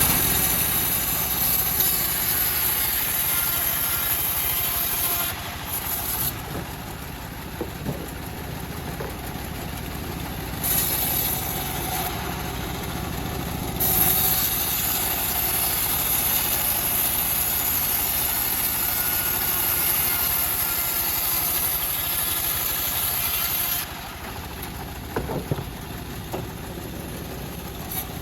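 Homemade engine-driven bandsaw mill running while sawing teak. Louder stretches with a high hiss, in about the first five seconds and again from about fourteen to twenty-four seconds, alternate with quieter stretches of the machine running.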